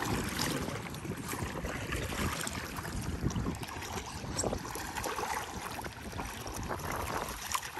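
Paddle strokes dipping and splashing in lake water beside a stand-up paddleboard, with water sloshing at the board and wind rumbling on the microphone.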